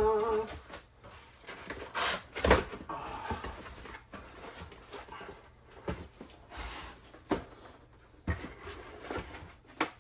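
Cardboard boxes being moved and opened by hand: scattered thuds and knocks with rustling in between, the loudest two knocks about two and two and a half seconds in.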